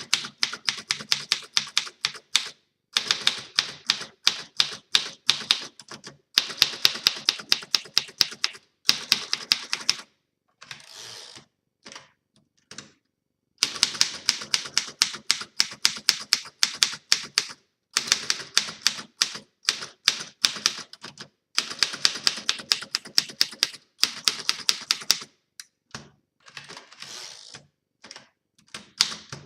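A 1935 Underwood Junior manual portable typewriter being typed on: runs of quick, sharp keystrokes, several a second, broken by short pauses, with a longer quieter stretch about ten seconds in.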